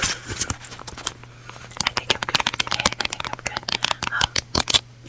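Small hard objects being handled, giving a quick irregular run of sharp clicks and rattles that grows dense about two seconds in and stops just before the end.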